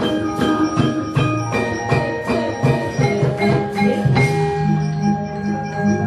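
Javanese gamelan accompanying a wayang kulit battle scene, playing briskly: many struck metal keys and gongs ringing over one another, driven by a quick run of sharp strokes.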